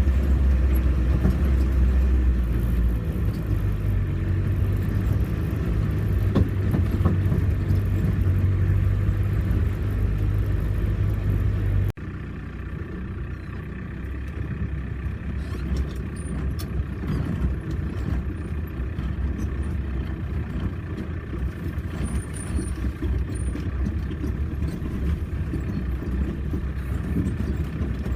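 Off-road vehicle engine running with a steady low rumble. It drops suddenly in loudness about twelve seconds in and carries on more quietly.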